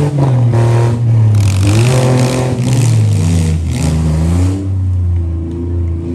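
Demolition derby vehicle's engine revved up and down several times, loud; about four and a half seconds in it settles back to a lower, steady run.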